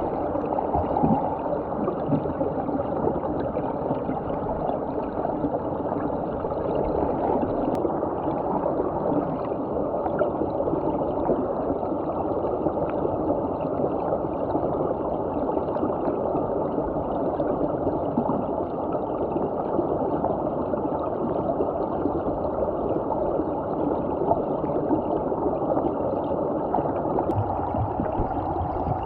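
Steady, muffled rushing and gurgling of flowing stream water, heard through a camera held underwater.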